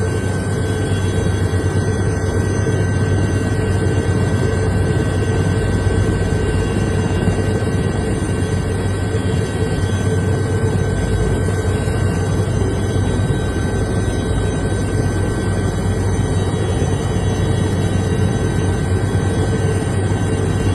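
Helicopter running steadily: a loud, constant drone of engine and rotor with a steady whine held on top, unchanging throughout.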